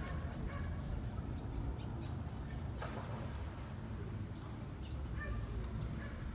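Outdoor ambience: a steady high-pitched insect chirring over a low rumble, with a few faint, scattered short sounds, one a little louder about three seconds in.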